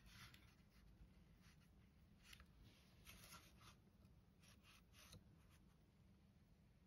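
Very faint, short swishes of a fine brush stroking light ink onto sized silk, several strokes during the first five seconds, over a low steady room hum.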